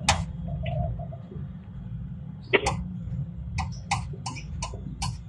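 Hitachi excavator's engine running with a steady low rumble, under a series of sharp clicks. The clicks are loudest at the start and about two and a half seconds in, then come about three a second near the end.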